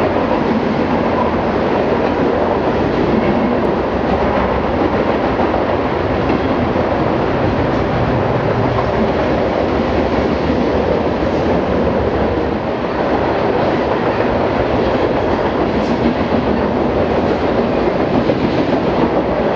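Freight train cars rolling past, steel wheels running on the rails in a loud, steady noise.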